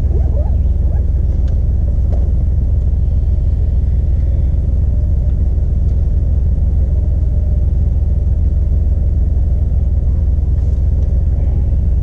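Jeep engine idling close by: a steady, loud, low rumble that holds even throughout.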